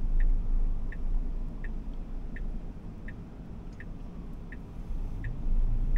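Tesla Model Y's indicator ticking in the cabin, about three ticks every two seconds, over the steady low rumble of the car rolling on wet road.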